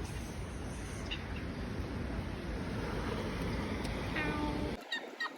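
Wind buffeting the microphone as a steady low rumble, which cuts off suddenly near the end. A short pitched animal call is heard just before the cut, and a few bird chirps follow.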